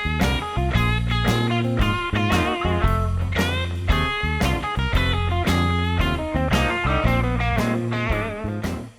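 Background music: a bluesy electric guitar melody with string bends over a steady bass.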